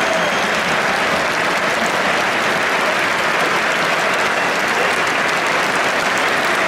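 Large stadium crowd applauding, a dense and steady clapping.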